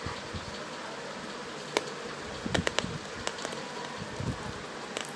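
Packaging and earbuds being handled during an unboxing: a few sharp clicks and taps, bunched together in the middle, over a steady background hiss.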